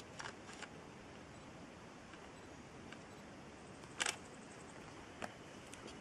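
Faint steady hiss with a few sharp clicks: two small ones at the start, the loudest about four seconds in and another about a second after it.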